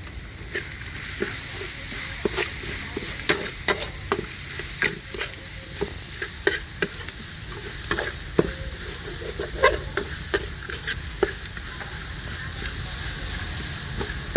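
Chicken frying with a steady sizzle while a utensil stirs it, knocking and scraping against the pan in irregular clacks that stop about eleven seconds in.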